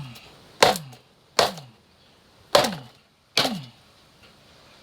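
Four hard knocks about a second apart: a new, stiff isolator being banged to force it down into place on a Mustang Cobra part.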